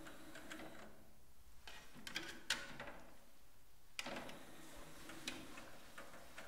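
Sony five-disc CD changer being loaded: a disc is set on its tray and the tray slides shut. There are faint clicks and short mechanical whirs from the tray and loading mechanism.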